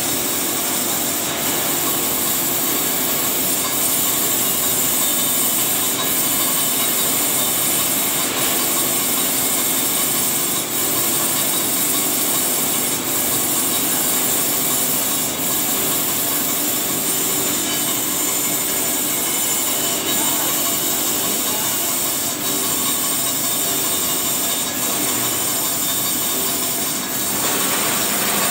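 Grinding wheel grinding a thermal-sprayed Monel coating on a turning shaft under flood coolant: a steady high hiss with splashing coolant, and a faint regular tick about every two and a half seconds.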